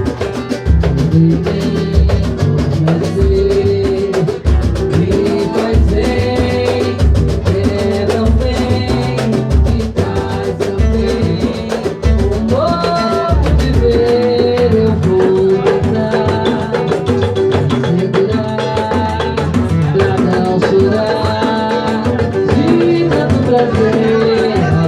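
Latin-style music with drums and percussion under a sustained melody line; the deep drum beats drop out about halfway through.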